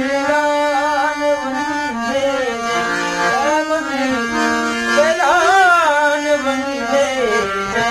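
Harmonium playing steady held notes while a man sings a drawn-out, ornamented melody over it, with a wavering run about five seconds in.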